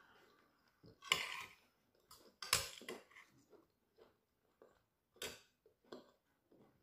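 Metal knife and fork scraping and clinking against a plate while cutting food: a short scrape about a second in, then a handful of separate clinks, the loudest two and a half seconds in.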